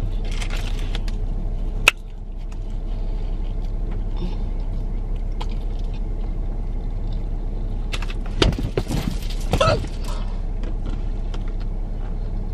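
Steady low rumble inside a car's cabin, with a sharp click about two seconds in and a couple of brief noises around eight to ten seconds in.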